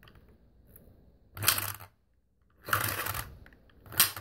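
Plastic spin-art spinner whirring in three short bursts about a second and a quarter apart as it is spun again and again, the paint-covered card turning under a plastic fork.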